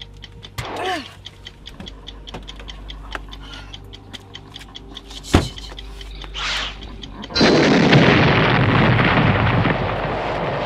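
Rapid clock-like ticking, about four or five ticks a second, with a short falling tone, a sharp click and a whoosh among the ticks. About seven seconds in, the ticking gives way to a sudden loud, steady rushing noise.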